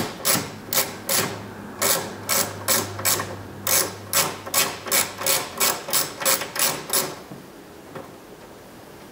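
Ratcheting T20 Torx driver clicking in quick, even strokes as the window crank handle's mounting screw is backed out, about two to three clicks a second with a short pause about a second in; the clicking stops about seven seconds in.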